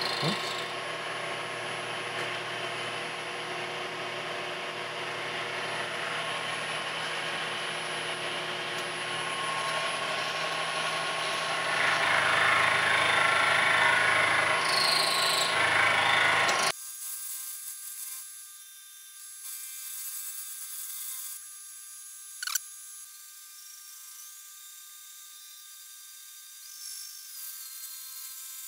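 Milling machine side-milling the cast-iron edge of a lathe cross slide with a half-inch four-flute carbide end mill: a steady cutting noise with a whine that grows louder about twelve seconds in. About two-thirds of the way through, the low part of the sound drops out suddenly, leaving a quieter, thin high whir with one sharp click.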